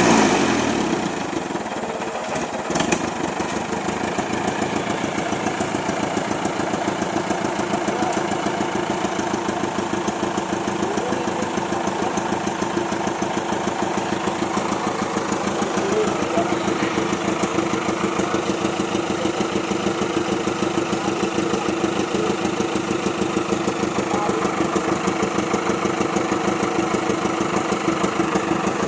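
Old truck engine coming down from a rev in the first second, then running at a steady, even beat. A single sharp knock sounds about three seconds in.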